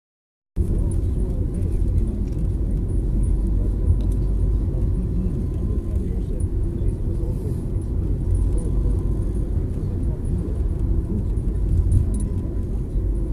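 Steady low rumble of a moving car's engine and tyres on the road, heard from inside the car, starting about half a second in.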